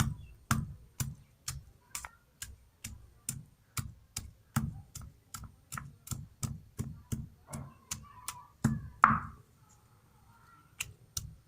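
Stone muller pounding raw amla (Indian gooseberries) on a silbatta grinding stone, cracking the fruit into pieces with steady knocks about two and a half a second. The pounding stops for about a second and a half near the end, then resumes.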